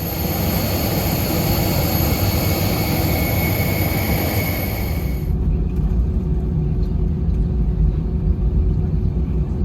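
Airbus A320 cabin noise: a steady low engine and airframe rumble with a high engine whine over it. About five seconds in the whine cuts off abruptly and the rumble carries on.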